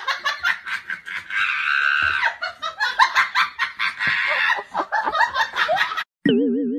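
A person laughing hard in quick bursts, broken by a couple of longer high-pitched stretches. Near the end it cuts off abruptly and a wavering, warbling music tone begins.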